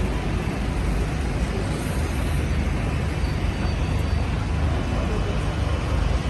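Steady low rumble of idling and slow-moving road traffic in a jam, engine drone with street noise.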